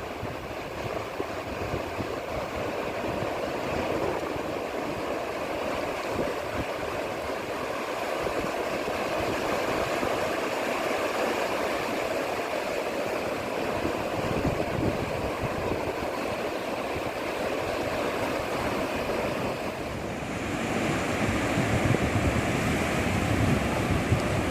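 Sea waves washing onto a beach in a steady surf roar, with wind on the microphone. About 20 seconds in, the wash turns louder and brighter.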